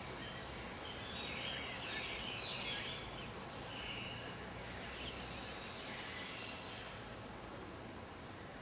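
Steady outdoor background noise with birds chirping, the calls most frequent in the first few seconds.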